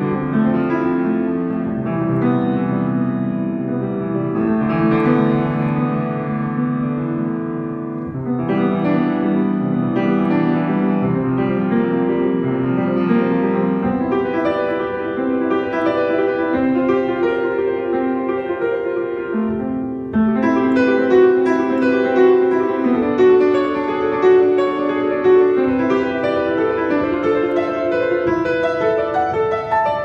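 Grand piano played solo: a steady flow of notes over lower chords, the music moving up into a higher register and growing a little louder about two-thirds of the way through.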